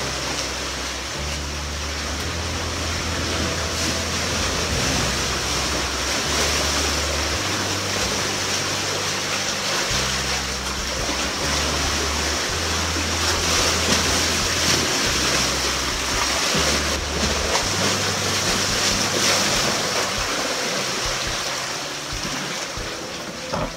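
Sea water rushing and surging through a narrow channel between boulders, a steady hiss. Under it, background music's bass notes change every second or two.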